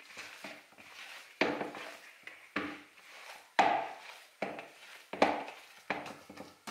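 Risen yeast dough being punched down by hand in its bowl to knock the gas out after proofing: a run of irregular thumps about once a second, some louder than others.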